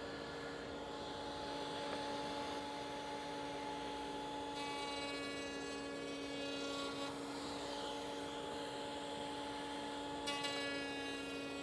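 Router running steadily with a dovetail bit. The sound changes twice, about four and a half and ten seconds in, for two or three seconds each time, as the workpiece is fed past the bit to cut a sliding dovetail.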